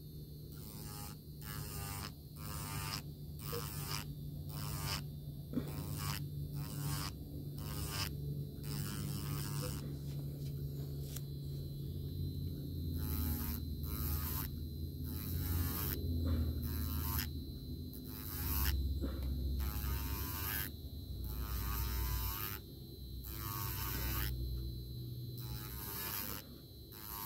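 Electric nail file (e-file) running, its bit grinding lifted acrylic powder off a fingernail in repeated short passes, roughly one or two a second, over a steady motor hum that shifts lower partway through.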